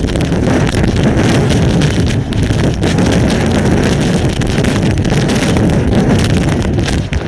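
Derecho winds blasting a webcam microphone in a heavy, gusting rumble, with a dense patter of wind-driven hail and rain striking throughout.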